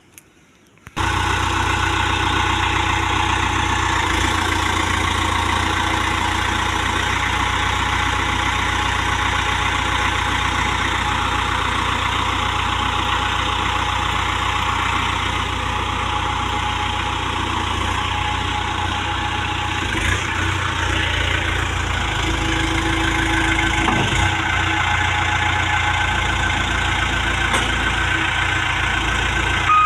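Case 770 NXe backhoe loader's diesel engine running steadily. It comes in abruptly about a second in.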